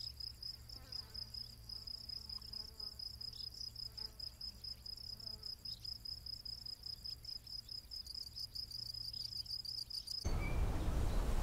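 Crickets chirping in a steady, fast, high trill. It cuts off about ten seconds in, and a louder, hissing outdoor background with a brief bird chirp takes over.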